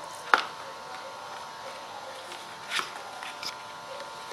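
A yellow cardboard-and-paper folder being handled and opened by hand: a sharp click a moment after the start, then a brief papery rustle about three seconds in and a few light ticks, over a faint steady hum.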